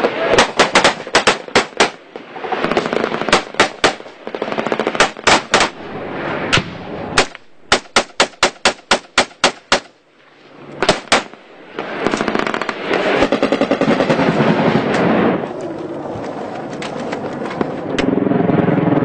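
Rifle and machine-gun fire in a firefight: strings of rapid shots, several a second, with short gaps between bursts for the first ten seconds. After a brief lull the second half turns into a denser, continuous rattle.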